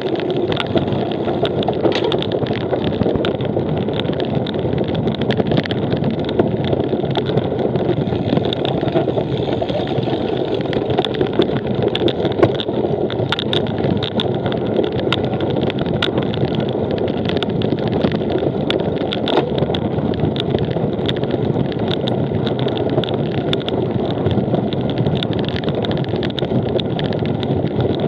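Steady riding noise of a cyclocross bike on a rough course: wind rushing over the microphone, with a constant scatter of small clicks and rattles from the bike.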